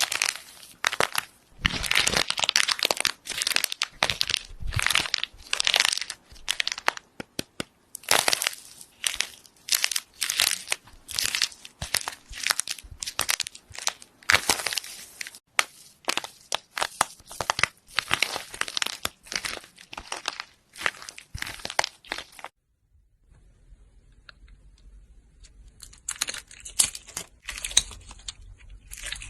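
Gold and silver material being crushed and broken: a quick, dense series of crunching, crinkling crackles that stops suddenly about two-thirds of the way through, then comes back as fainter crackles near the end.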